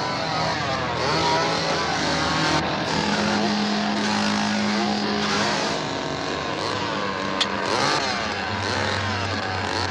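Two-stroke chainsaw running and revving up and down again and again.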